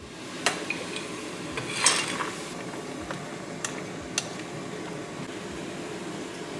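Wooden spoon stirring pasta in a saucepan of boiling water on a gas stove, knocking against the pot a few times, loudest about two seconds in, over a steady bubbling hiss.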